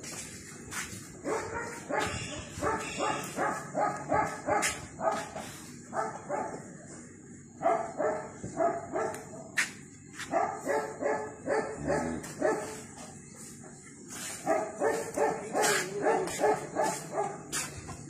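A dog barking in quick runs of short barks, about four or five a second, with short pauses between the runs.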